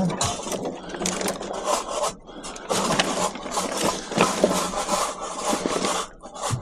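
Scrap metal being handled and dragged: irregular scraping and rubbing with short knocks and clatter throughout.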